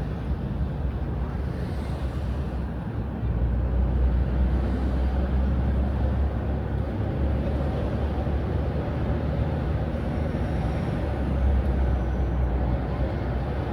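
Steady low road and engine rumble heard from inside a moving vehicle, a little louder about three seconds in.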